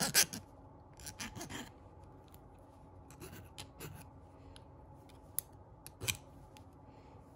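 Hand file scraping across the cut end of a thick copper wire, smoothing off the rough end. Short, uneven strokes come in several bursts with pauses between, the loudest at the start.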